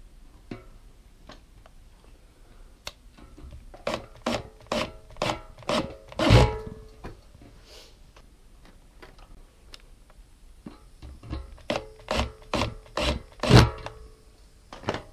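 Hand tool scraping on electrical wire at a well pump motor's wiring terminals, as in stripping insulation and working the wire ends. Two runs of about six short scraping strokes, one a few seconds in and one near the end, the last stroke of each the loudest.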